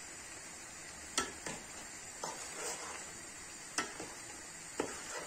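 Diced eggplant frying in hot oil in a steel pan, a steady sizzle, while a metal spoon stirs chopped tomatoes in a large stainless pot, clinking sharply against it a few times.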